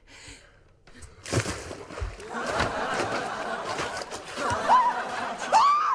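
Audience laughter from a sitcom laugh track, swelling about two seconds in and staying loud, with a few higher whoops of laughter near the end.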